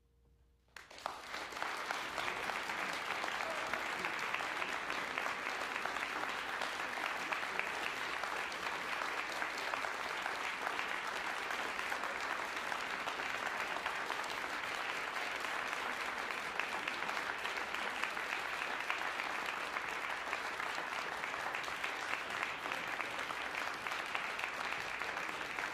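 Concert audience applauding, breaking out suddenly about a second in as the last faint held piano note is cut off, then going on as steady, dense clapping.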